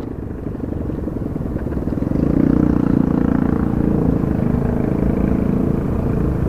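An engine running steadily, a low rumble that grows louder about two seconds in and holds.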